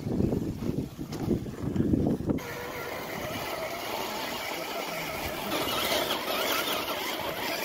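Radio-controlled crawler's electric motor and gears whining as the truck drives, with several wavering pitches. For the first two seconds there is instead a low, uneven rumble, and the sound changes abruptly.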